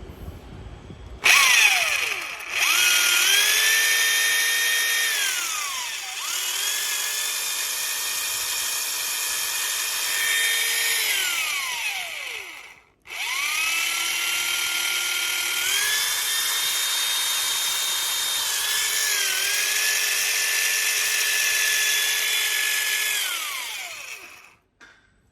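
Electric jigsaw motor with a swapped-in armature being test-run: it whines up to speed with a few changes in speed, coasts to a stop about halfway through, then is started again and runs about ten seconds before winding down near the end.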